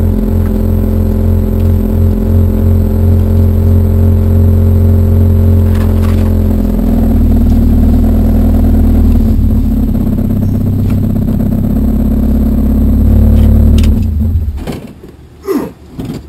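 Spec Miata race car's four-cylinder engine running steadily at low revs as the car rolls slowly, heard from inside the cabin; it is shut off about 14 seconds in, and a couple of brief noises follow.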